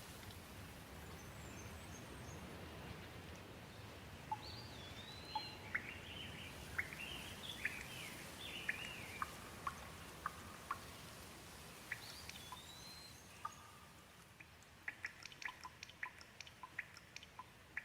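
Gentle rain falling steadily, with a bird calling over it in rising and falling whistles and chirps from about four seconds in, again around twelve seconds. The rain eases after about fourteen seconds, and near the end a run of quick sharp ticks like drips comes through.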